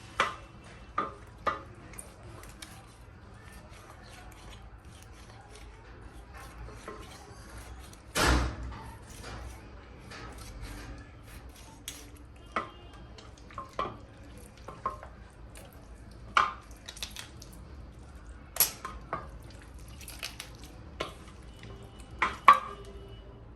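Kitchen utensils and dishes clinking and knocking at irregular intervals, some strikes ringing briefly like metal or crockery, with one heavier knock about eight seconds in.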